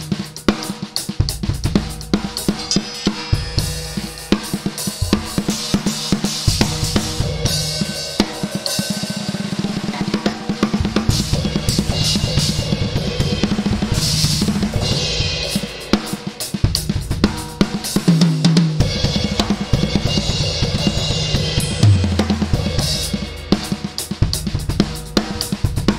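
Rebuilt Fibes drum kit played solo: fast patterns across the toms, snare and bass drum, with crashes and other cymbals ringing over the top. The toms sound distinct pitches, and a low tom note stands out a little past the middle.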